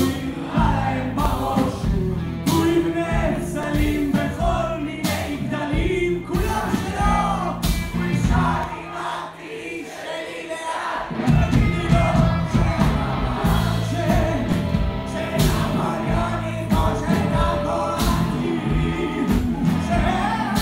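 Band playing live with singing. About halfway through, the bass and drums drop away for a couple of seconds, then the full band comes back in.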